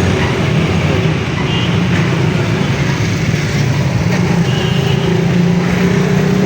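Steady vehicle engine and road-traffic noise, a constant low hum with no clear breaks.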